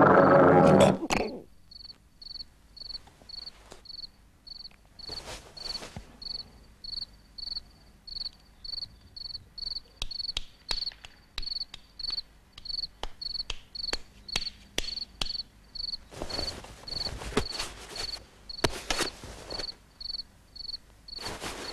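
Cricket chirping steadily as night ambience, short high single chirps about two a second. A loud low buzzing sound breaks off about a second in, and soft rustling noises come and go.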